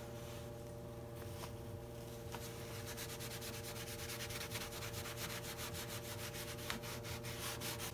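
Paper towel scrubbed rapidly back and forth over oven-cleaner-softened paint on a steel deck lid, wiping the old paint layers off: a fast scratchy rubbing that picks up about three seconds in, over a steady low electrical hum.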